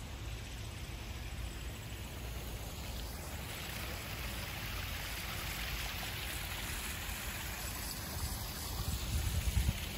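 Small garden pond waterfall splashing over stacked stones into a koi pond: a steady rush of water that grows louder about three and a half seconds in. A few low bumps near the end.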